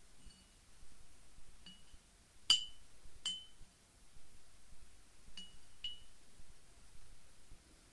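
Teacup and spoon clinking as a cup of ginger tea is prepared: about six light clinks, each with a short high ring, the loudest about two and a half seconds in.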